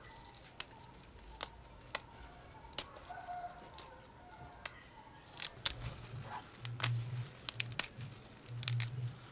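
Crisp lettuce leaves rustling and crackling as hands toss them into a glass bowl. The crackles are sparse and sharp at first, then come thick and fast in the second half as the leaves are mixed.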